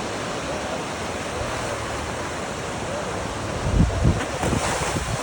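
Ocean surf washing steadily, with wind buffeting the microphone in low gusts about four seconds in.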